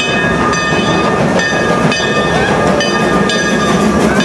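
Narrow-gauge steam locomotive approaching and crossing a trestle with a continuous heavy rumble. A ringing tone repeats about twice a second over it.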